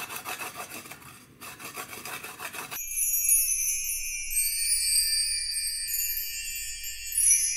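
Fresh ginger being grated on a metal hand grater, with repeated rasping strokes. About three seconds in, the grating gives way abruptly to a high, tinkly jingle, a fast-forward music cue.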